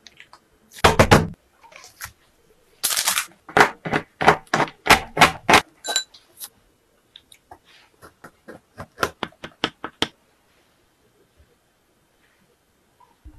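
Kitchen food-prep handling sounds: a series of sharp taps and knocks from utensils and containers, loudest about a second in, then a quick run of evenly spaced taps between about three and six seconds, thinning out by about ten seconds.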